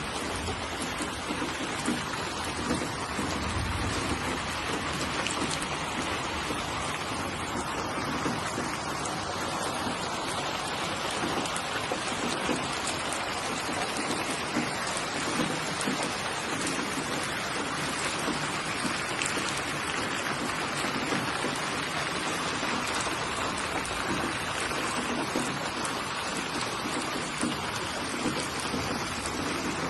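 Steady rain falling, a constant hiss of drops on surfaces with fine individual drop patter, and a brief low rumble about four seconds in.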